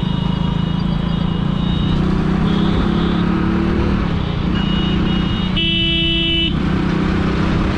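Motorcycle engine running steadily under way. About three-quarters of the way in, a vehicle horn sounds once for about a second.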